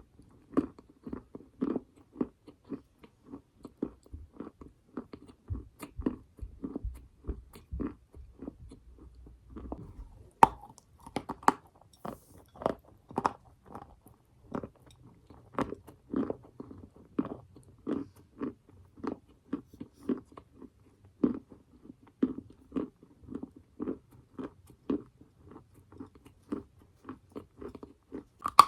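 Close-up chewing of edible chalk or clay: steady crunchy mouth chewing, about two chews a second, with a sharper crack as a piece breaks about ten seconds in.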